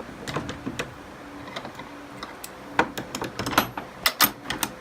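Horse eating feed close by: irregular sharp crunches and knocks, sparse at first, then quicker and louder in the second half.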